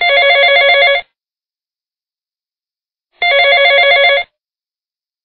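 Telephone ringtone for an incoming call: two rings about a second long and about three seconds apart, each a fast trill of several tones, with silence between.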